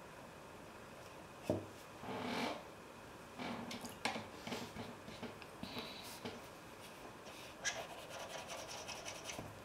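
Flat watercolour brush scrubbing across wet watercolour paper in a series of short strokes, lifting paint back out. There are a couple of faint ticks between the strokes.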